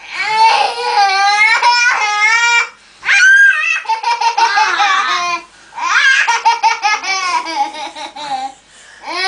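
Two young children, a toddler and a preschooler, laughing in three long bouts of rapid giggling. There is a high squeal about three seconds in.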